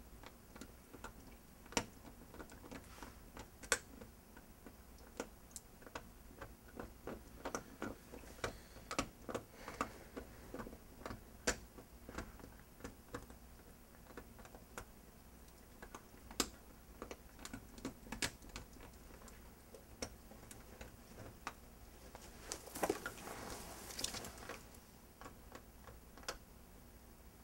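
Quiet bedroom sounds: faint scattered clicks and ticks at uneven intervals, and a longer rustle of bedclothes near the end as someone shifts over in bed.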